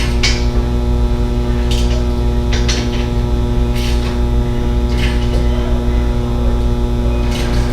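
Loud steady electrical mains hum, with a few short sharp noises spaced about a second apart.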